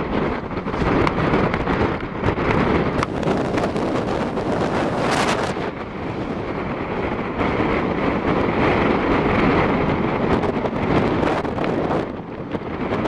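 Strong typhoon wind buffeting the microphone in gusts, a loud, continuous rushing roar that rises and falls, with a sharp bump about five seconds in.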